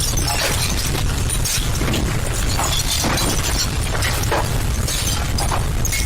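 Deep continuous rumble during an earthquake, with repeated irregular crashes and shattering of glass and debris over it.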